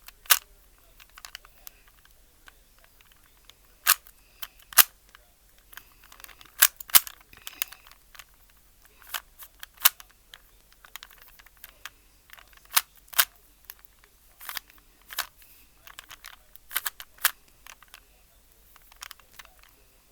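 A Rubik's Cube's faces being turned by hand: irregular sharp clicks and clacks of the plastic layers, often two in quick succession, with short pauses between moves.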